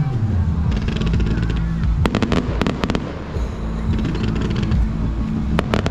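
Fireworks crackling: clusters of rapid sharp pops, the loudest about 2 s in and again near the end, over a steady low rumble.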